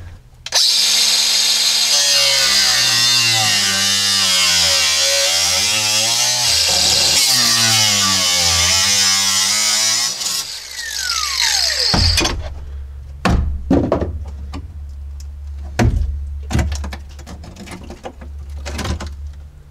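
Milwaukee cordless angle grinder cutting through rusted sheet-metal floor pan: a loud, steady grinding whose pitch sags and recovers as the wheel bites. It is released about ten seconds in and its whine falls away as it spins down. After that come several sharp metallic knocks as the cut metal is worked loose by hand.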